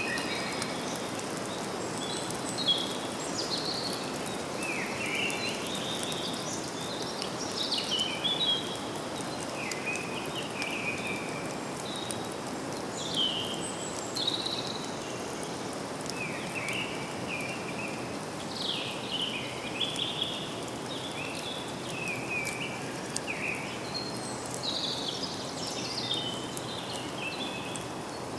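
Woodland birds singing: many short, high chirps and warbling phrases from several birds, overlapping and coming and going, over a steady background rush of forest ambience.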